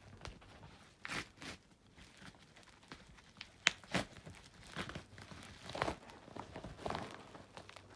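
Padded mailer envelope being torn open by hand: a string of irregular tearing and crinkling rustles, with one sharp click about three and a half seconds in.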